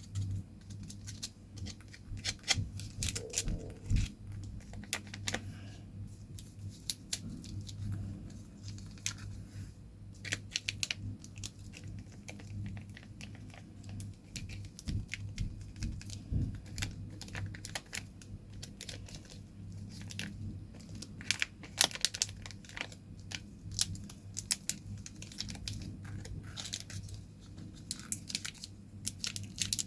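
Close-up crinkling, crackling and tearing of sweet wrappers being handled, in irregular bursts, over a low steady hum.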